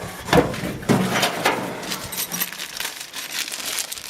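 Toolbox parts and packaging being handled: a couple of knocks about half a second and a second in, followed by a run of small clicks, clinks and rustles.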